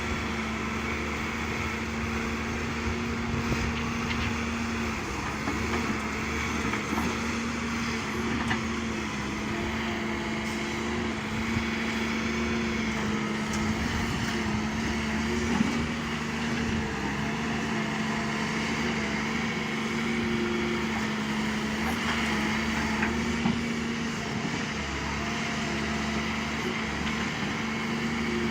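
Excavator's diesel engine running steadily at a constant pitch, with a few short knocks and clanks of machinery working gravel.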